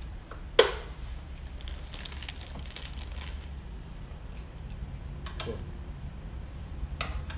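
Small accessories and their plastic bag being handled: crinkling plastic and light clicks of small parts, with one sharp click about half a second in, over a steady low hum.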